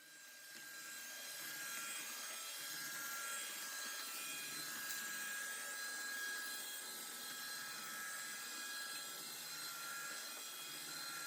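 iRobot Roomba 614 robot vacuum running its spot clean cycle: a steady motor-and-brush whir with a high whine, building up over the first second or so and then holding.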